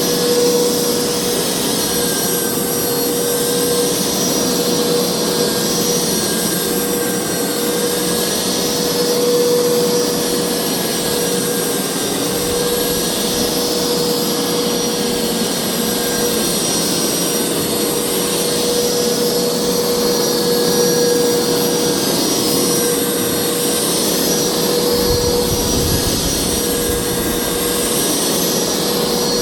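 Hoover carpet cleaner's motor running steadily, a continuous whine with a rushing hiss of suction. A brief low rumble comes in about 25 seconds in.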